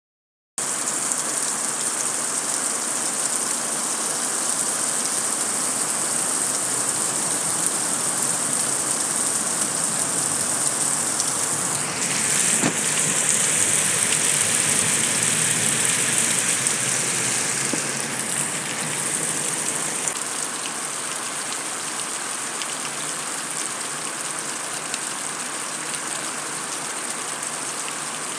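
Heavy rain falling steadily on concrete, a dense continuous hiss. It grows heavier about twelve seconds in, then eases a little after about six seconds.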